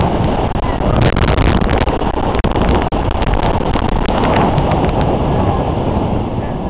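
Loud, steady wind buffeting the microphone on a fast-moving amusement ride, with scattered sharp clicks and rattles.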